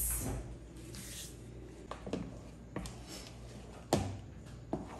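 A few scattered light knocks and clunks of kitchen things being moved and set down on a counter, the sharpest about four seconds in.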